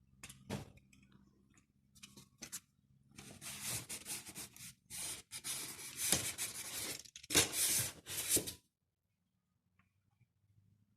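Packaging being handled and torn: a few scattered scrapes at first, then several seconds of dense tearing and rubbing noise with sharp clicks, which stops abruptly.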